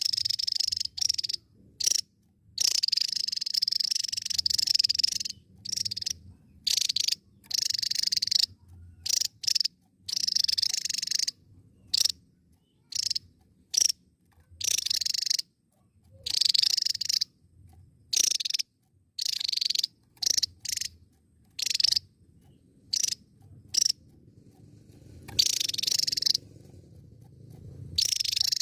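Javan tesia singing: a run of high-pitched song phrases, some lasting two to three seconds and others very short, with brief pauses between them.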